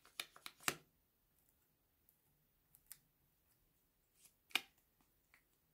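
Small plastic clicks and taps from a tube of yellow mascara being handled as its wand is drawn out: a quick run of clicks in the first second, a few scattered ones after, and a sharper click about four and a half seconds in.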